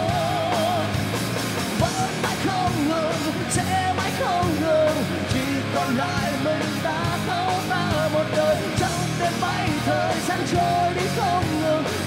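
Live rock band playing loud: a male lead vocal with vibrato over distorted electric guitar and band.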